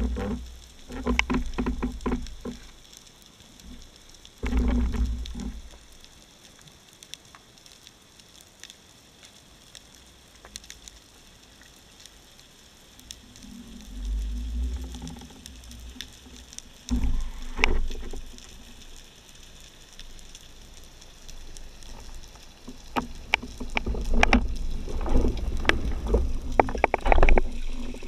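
Underwater sound through a speargun-mounted camera's housing: low rushing of water in several bursts, with knocks, over a faint steady crackle.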